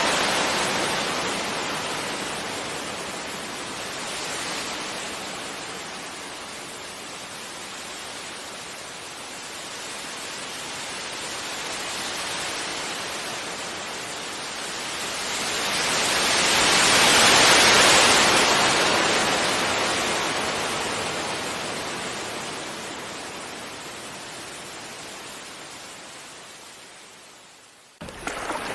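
Sea waves washing onto a beach: surf hiss swells and eases, with one larger wave breaking past the middle and its wash fading away slowly. Right at the end the sound cuts abruptly to fresh surf.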